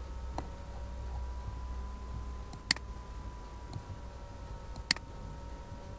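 Computer mouse clicking: two sharp clicks about two seconds apart, with a few fainter ticks, over a steady low hum.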